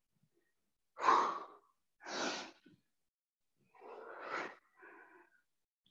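A woman breathing hard from exertion: four heavy breaths, the loudest a sharp exhale about a second in, the others around two, four and five seconds in.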